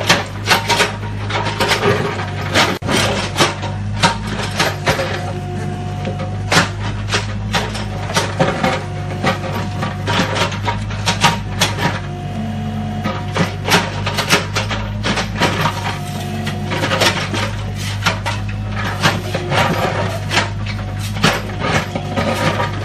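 Mini excavator's diesel engine running steadily while its bucket digs and scrapes through soil and broken brick, with frequent knocks and clatter of bricks throughout.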